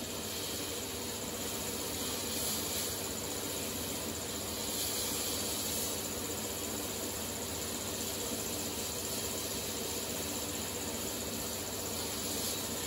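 Blast-cabinet sandblasting gun running: a steady hiss of compressed air and grit ripping paint and rust off a steel belt cover.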